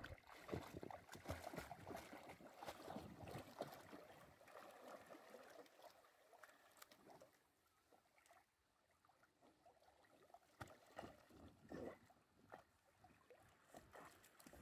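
Faint sloshing and splashing of water as a Portuguese water dog paddles through a pool, busiest at first, easing off in the middle, then a few louder splashes again later.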